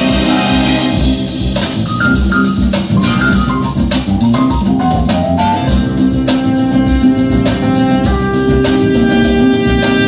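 Music with organ-like keyboard and a steady beat.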